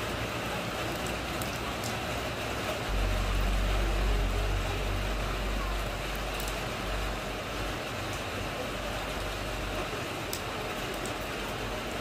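Steady rain falling on a puddle and wet ground, with scattered drop ticks. A deep low rumble swells about three seconds in and fades a few seconds later.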